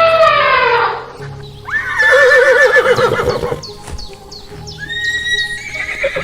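Animal calls over background music: a long held call that falls away in the first second, a louder quavering, whinny-like call about two seconds in, and a shorter call near the end.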